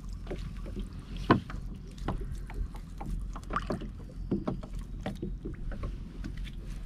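Scattered light knocks and water noises of a gill net being hauled and fish picked out of it, with one sharper knock about a second and a half in, over a low steady rumble.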